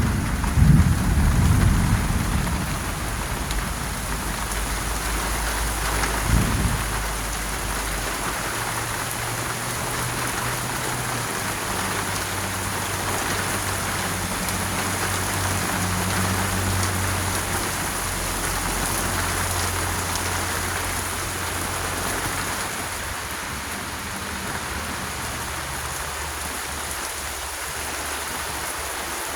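Heavy rain falling steadily, with gusts of wind rumbling on the microphone in the first couple of seconds and again about six seconds in. A faint low hum sits underneath through the middle.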